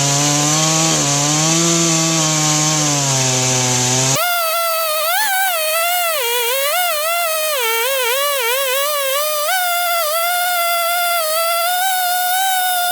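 Husqvarna 562 XP two-stroke chainsaw running at high revs under load as its ripping chain cuts through a pine log in a chainsaw mill, pitch wavering slightly. About four seconds in it cuts off abruptly to a high, wavering melodic tone with no bass, like background music.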